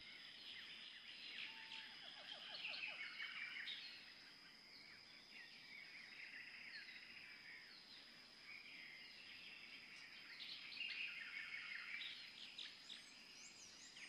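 Faint background birdsong: several small birds chirping and trilling, busiest around three seconds in and again after about ten seconds, over a faint steady high tone.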